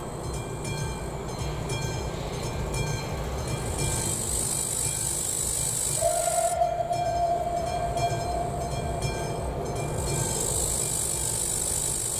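Steam locomotive approaching with its train, running with a low steady rumble. About halfway in it sounds its whistle: one long steady blast of about four seconds.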